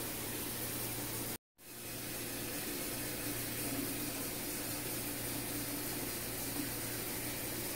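Steady background hiss with a low hum, briefly cut to silence about a second and a half in.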